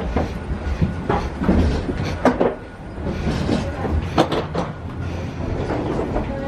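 People walking through a jet bridge: a steady low rumble from the walkway, with scattered knocks and clatter as it takes their steps.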